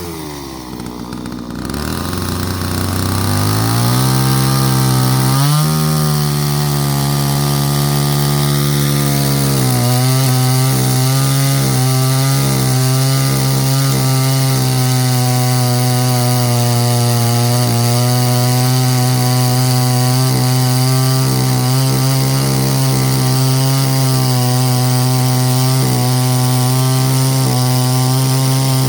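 Chainsaw engine running at high revs; its pitch sags and recovers twice in the first six seconds, then holds steady.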